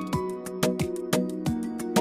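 Background music: plucked guitar-like instrument over a steady beat of about two strikes a second.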